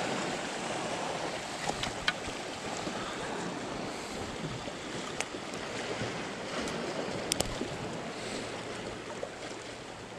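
Sea waves washing steadily, with a few short sharp clicks, two of them close together about seven seconds in.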